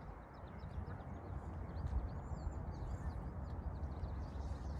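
Wind buffeting a phone microphone with a steady low rumble, with faint bird chirps in the background.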